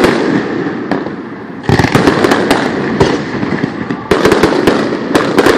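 Aerial fireworks display: loud bursts just at the start, about 1.7 seconds in and about 4 seconds in, each followed by a dense run of rapid sharp pops.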